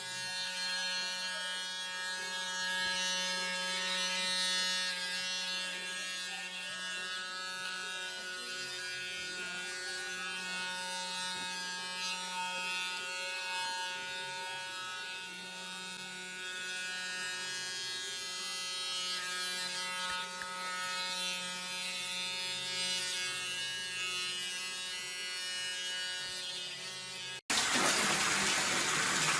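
A small handheld electric device, held against a chimpanzee's chin, buzzing with a steady hum. Near the end it cuts abruptly to a bath tap running into a filling bathtub.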